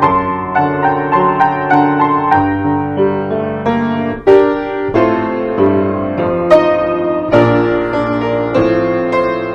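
Solo piano playing a slow piece in sustained chords, with a clear new note struck every half second or so.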